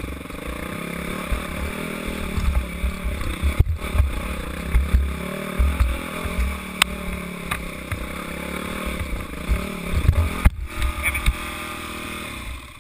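Dirt bike engine revving up and down while riding over rough ground, with heavy wind buffeting on the helmet-mounted microphone. Twice the sound drops out for an instant.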